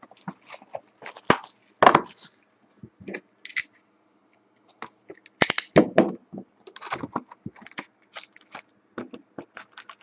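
A sealed trading-card box being unwrapped and opened by hand: crinkling plastic wrap and clicks and scrapes of cardboard, in irregular bursts that are loudest about a second in and again around five to six seconds.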